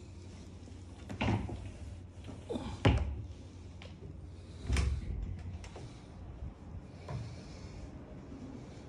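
A few dull knocks and thumps over a steady low hum, the loudest about three seconds in.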